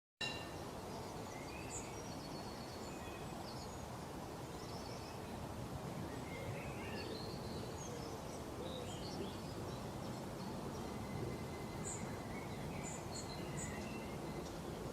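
Several small birds chirping and trilling in short, scattered calls over a steady, low background noise, which is the loudest part of the sound.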